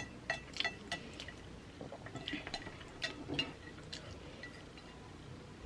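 Cutlery clinking against a plate while eating noodles: a scatter of small sharp clinks, most of them in the first three and a half seconds, with faint wet mouth sounds.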